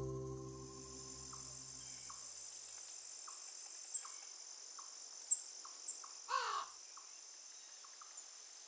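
Faint, steady, high-pitched trilling of crickets or other insects, with short chirps repeating about every three-quarters of a second. About six seconds in there is a single bird call sliding down in pitch. The tail of background music fades out over the first two seconds.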